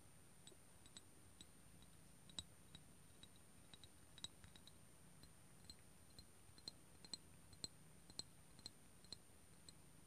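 Fingernails tapping lightly on a small glass milk jug: faint, sharp, irregular ticks, about two or three a second.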